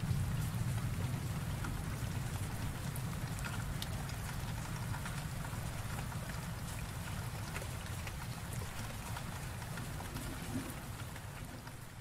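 Steady heavy rain hissing, with single drop hits ticking through it. A low rumble of thunder dies away in the first second, and the rain fades down near the end.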